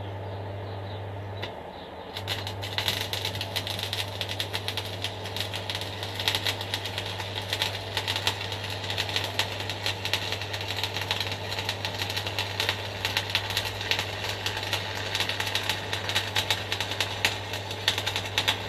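Stick (MMA) arc welding: the arc is struck about two seconds in and then crackles and sizzles steadily as the electrode burns onto scrap steel, over a steady low hum. The weld runs smoothly, with the welder set right.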